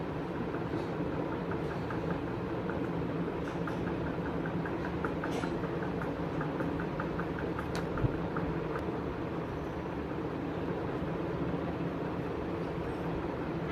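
Steady low mechanical hum, with a run of faint quick ticks for several seconds and one sharp click about eight seconds in.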